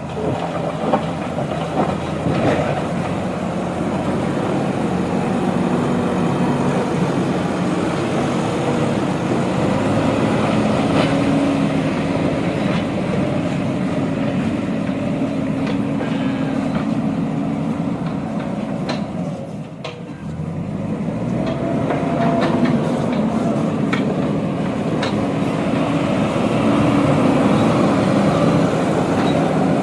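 JCB 3DX backhoe loader's diesel engine running under working load, with scattered metallic clanks and rattles. The engine note drops about two-thirds of the way through, then builds up again.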